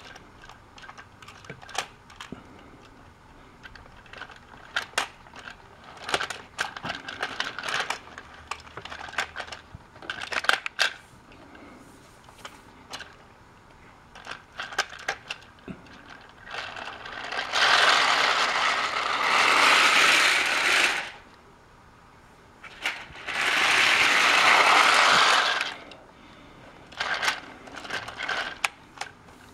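Light plastic clicks and rattles from toy train cars and couplings on plastic track. Then two loud stretches of steady rushing hiss, each lasting three to four seconds, then more clicks.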